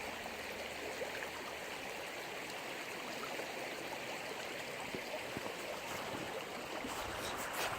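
Creek water rippling over rocks and pebbles, a steady, even rush.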